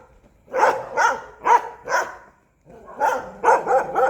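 A dog barking in a run of short, loud barks, stopping briefly about two and a half seconds in, then barking again in quicker succession.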